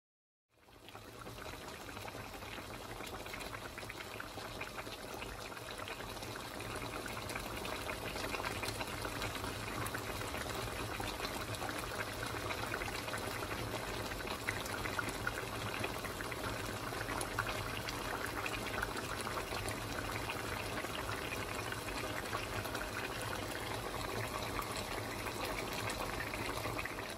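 Pot of okra soup simmering on the stove: a steady, fine bubbling that starts about half a second in and holds even throughout.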